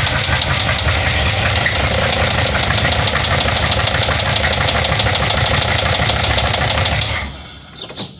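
Buick 455 Stage-1 V8 running with its valve cover off, with a fast, even knock from inside the engine; the engine shuts off about seven seconds in. The owner says a replaced rocker arm retainer has not cured the noise, and a helper suspects a failing front cam bearing.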